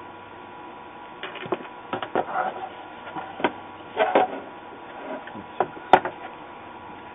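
Handling noise at a soldering bench: a motherboard shifted on the desk and a solder spool moved about. It comes as a scattered run of short clicks and knocks, the sharpest about six seconds in, over a steady low hum.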